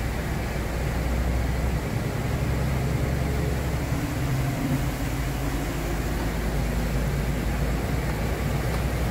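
Steady engine and road noise heard from inside a vehicle's cab as it drives through shallow floodwater on the road, a low hum under an even hiss.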